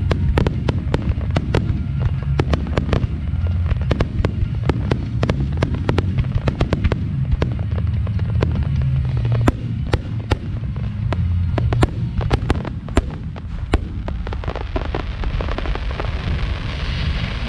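Aerial fireworks shells bursting in quick succession, a steady run of sharp bangs, several a second at times, over a continuous low rumble. A hiss builds near the end as new shells rise.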